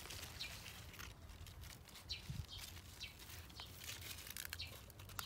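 Faint rustling of leaves and soft crackle of soil as a pak choi plant is pulled up by its roots and handled, with scattered small ticks.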